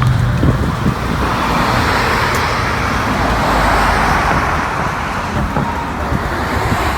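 Road traffic noise: a vehicle's tyre and engine noise swelling to a peak in the middle and easing off again, over a low steady rumble.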